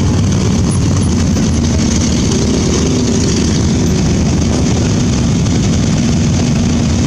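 A procession of motorcycles and scooters riding slowly past at low revs, their engines making a steady, loud, low drone.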